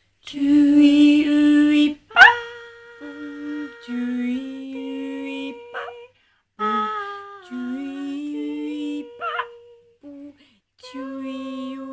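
Two voices humming long held notes together, one lower and one higher, moving to a new pitch every second or so, with a few quick rising vocal slides between notes. The first note, in the opening two seconds, is the loudest.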